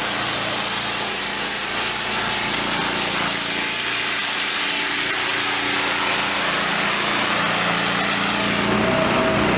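An engine running steadily close by, with a loud, even hiss over its low hum.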